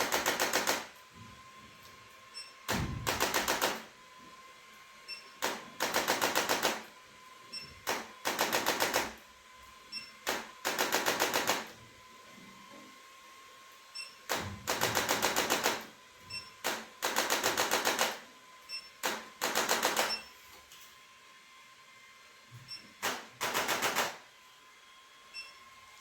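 Handheld percussive chiropractic adjusting instrument firing rapid trains of clicks. It goes in short bursts of about a second, nine times, every two to three seconds, with single clicks between some of the bursts.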